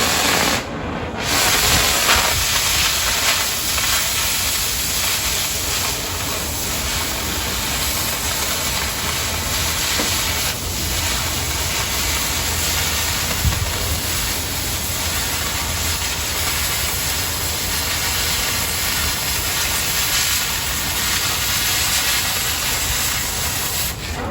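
Oxy-fuel cutting torch hissing steadily as it cuts through quarter-inch plate.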